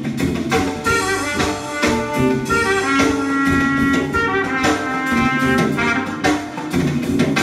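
Jazz music with brass and drums, played back through a pair of wooden hi-fi loudspeakers driven by a valve amplifier.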